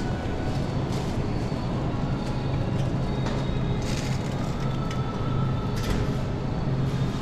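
Supermarket background noise: a steady low hum with scattered light clicks and rattles.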